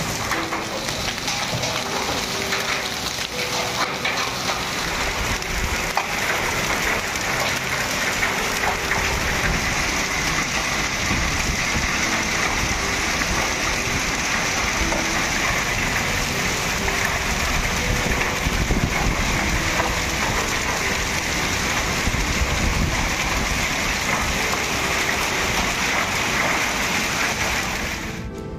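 Heavy rain mixed with hail falling on concrete and a wet road: a steady hiss of rain with occasional sharp ticks of hailstones striking.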